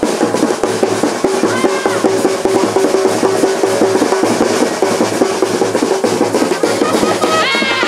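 Percussion-heavy festival music with fast, dense drumming, and a steady held note for about three seconds in the middle.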